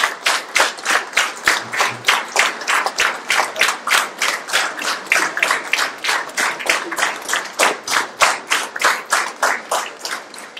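Audience clapping in unison, a steady rhythm of about three to four claps a second, fading out near the end.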